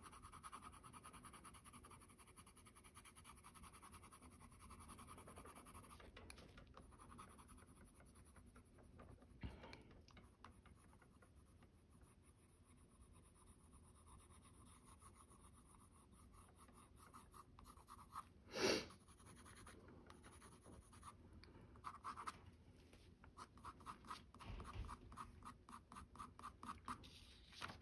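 Faint scratching of a Faber-Castell Polychromos colored pencil on toned tan paper, laid down in short strokes that quicken into a rapid run of strokes over the last few seconds. One brief louder scuff about two-thirds of the way through.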